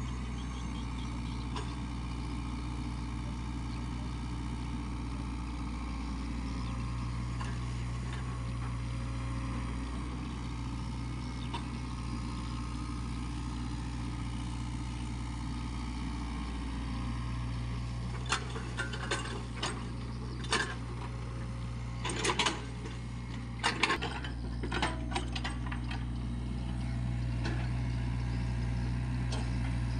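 SANY SY55C mini excavator's diesel engine running steadily as it digs, its note stepping up and down a few times as the hydraulics load it. About two-thirds of the way through comes a run of sharp knocks and clanks.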